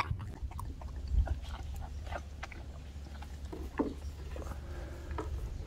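A beagle eating grilled beef scraps off a wooden cutting board: a run of short, irregular wet smacks and clicks of licking and chewing, over a low steady rumble.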